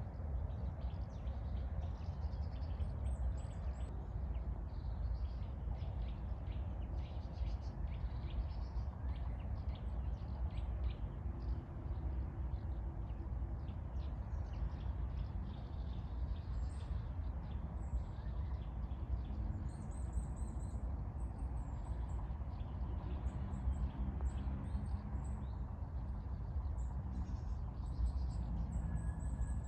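Many small birds chirping and calling from the trees, short scattered notes throughout, over a steady low rumble.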